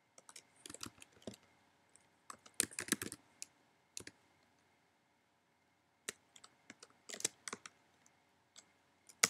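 Computer keyboard being typed on: irregular short runs of key clicks, with a pause of almost two seconds near the middle.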